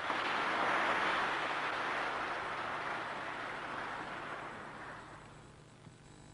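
Large audience applauding: clapping that comes in all at once, is at its fullest within the first second and dies away over about five seconds.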